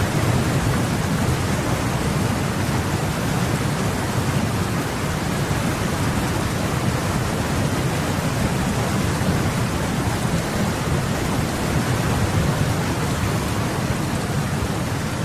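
Heavy rain: a steady, even rush of noise with a deep rumble underneath.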